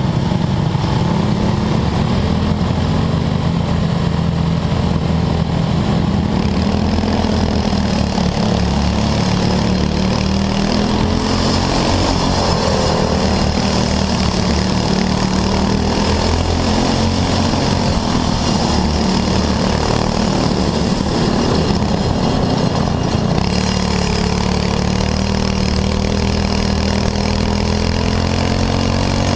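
Racing go-kart's small engine running hard through laps, its pitch rising and falling with speed and climbing steadily near the end as the kart accelerates down a straight.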